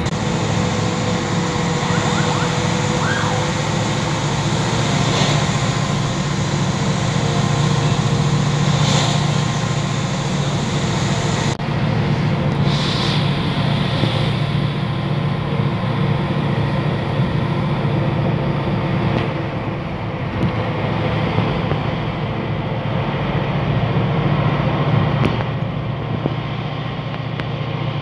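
Steady road and engine noise of a moving vehicle heard from inside the cabin, a low drone under a constant rush, with a faint steady whine above it.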